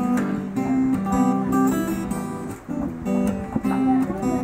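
Acoustic guitar strummed in a rhythmic instrumental passage of chords, with a short break a little past halfway.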